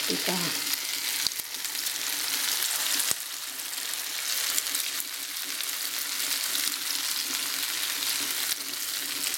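Sausage rings frying in hot oil in a frying pan: a steady sizzling hiss, with two light clicks about one and three seconds in.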